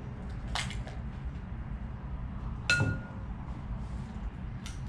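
Egg being cracked against the rim of a glass bowl: one sharp ringing glass clink a little past halfway, with lighter clicks of shell and bowl near the start and near the end, over a steady low room hum.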